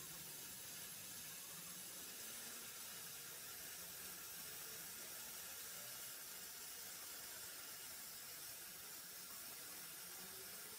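Faint steady hiss with no distinct sounds in it.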